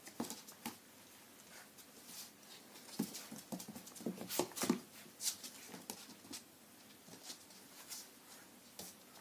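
Golden Retriever puppies, nearly five weeks old, scampering and playing with toys on a hard floor: scattered light clicks and taps of little claws and toys knocking, busiest about three to five seconds in.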